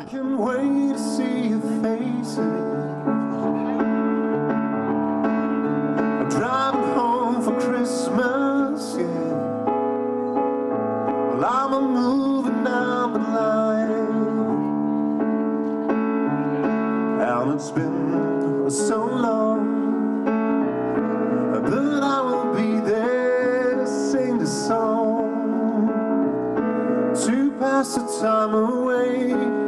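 A man singing a Christmas song live into a microphone over piano-like keyboard accompaniment, with sustained chords under phrases that waver with vibrato.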